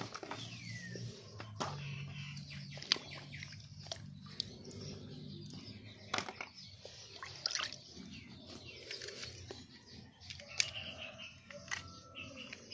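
Snakehead fish thrashing in a shallow muddy puddle: irregular slaps and splashes of water, some sharp and sudden, spaced a second or so apart.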